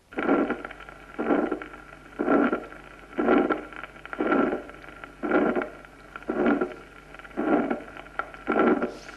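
Recorded heart sounds through a stethoscope: the harsh mid-systolic murmur of aortic stenosis, repeating with each heartbeat about once a second.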